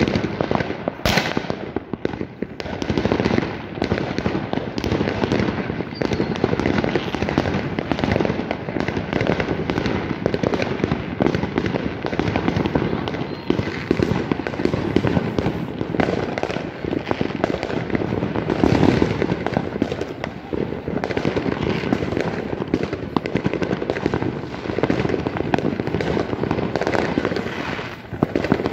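New Year fireworks and firecrackers going off all around: a dense, unbroken crackle of many overlapping bangs and pops, with one sharp crack about a second in.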